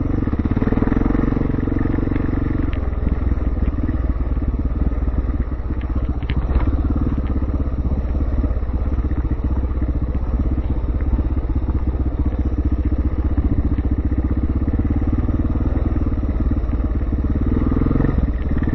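Yamaha TT600 dirt bike's single-cylinder four-stroke engine running while the bike is ridden over rough dirt. The engine note drops about three seconds in and picks up again near the end as the throttle changes.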